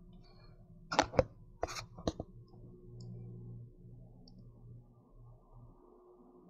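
A handful of sharp clicks and knocks, about five in the first two seconds or so, then only a faint, steady low hum.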